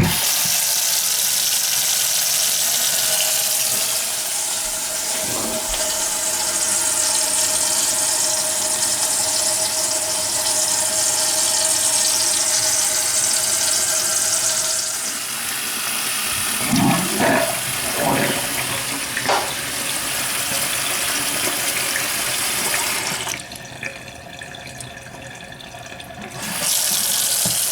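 Tap water running steadily into a kitchen sink and down the drain of a newly installed garbage disposal, a leak test; the flow goes quieter for a few seconds near the end.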